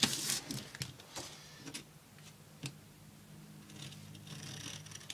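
Duct tape and a plastic sheet being handled and pressed down by hand: soft rustling and crinkling with a few small clicks, over a faint steady low hum.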